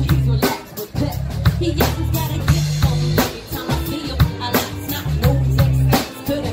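Live band playing amplified rock music, with a drum kit keeping a steady beat under bass notes and electric guitar.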